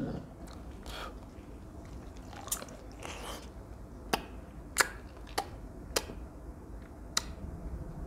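Lychee shells being cracked and peeled by hand, giving a series of short, crisp snaps.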